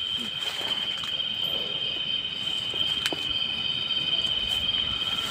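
Crickets trilling in one steady, high-pitched tone, with a faint click about three seconds in.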